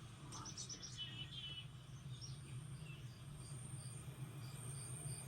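Quiet insect ambience. A quick run of high chirps and a short warbling call come in the first two seconds, then a high chirp repeats about twice a second, cricket-like, over a low steady hum.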